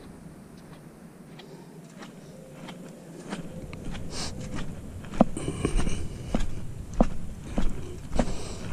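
Footsteps walking on sand, quiet at first, then from about five seconds in a regular step roughly every half-second or so.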